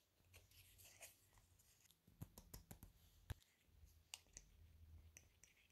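Faint handling of paper doll cut-outs: scattered soft clicks and rustles of paper, with a quick cluster of them a couple of seconds in.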